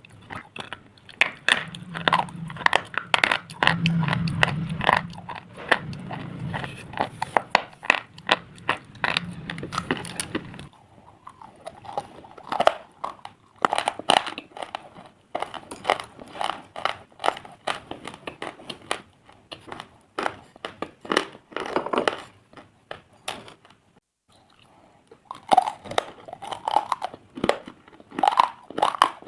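Pieces of slate being bitten and chewed: dense, crisp crackling and crunching for about the first ten seconds, then slower, separate crunches, with a short pause shortly before the end.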